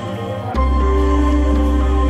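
Background music of held, sustained tones; a deep bass note comes in about half a second in and holds.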